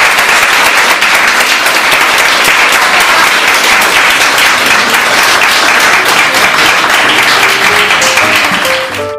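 Audience applauding, a loud dense clatter of many hands clapping that dies away near the end as piano music fades in.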